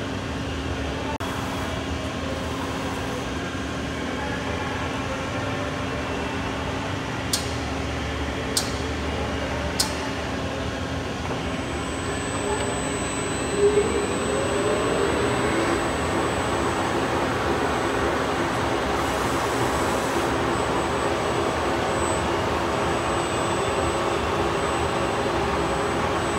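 Steady shop machinery hum with three sharp clicks. About halfway through, the spindle of a MASTEEL CNC hollow-spindle lathe starts and its 32-inch four-jaw chuck spins up with a rising whine. It then runs at a steady speed, a little louder than before.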